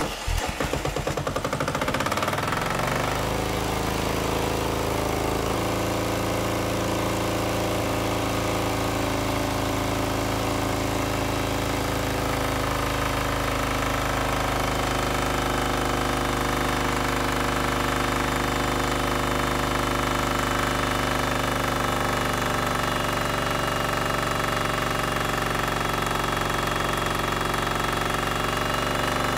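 Kohler single-cylinder air-cooled diesel engine, running on hydrodiesel, starting up and settling within about two seconds into a steady, even run.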